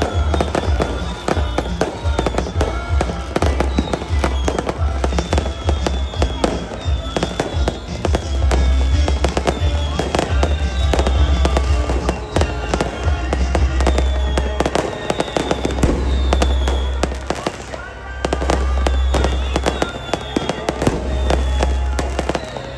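Fireworks going off in quick succession: dense crackling and sharp bangs over a continuous low rumble. Music plays along with them.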